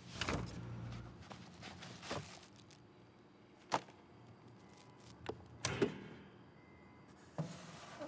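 Refrigerator door pulled open with a rattle and low hum, followed by scattered sharp clicks and knocks of things being handled. The loudest is a pair of clunks about six seconds in.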